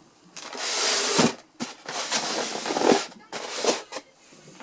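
Plastic and cardboard fan packaging being handled, crinkling in several noisy bursts, with a couple of knocks.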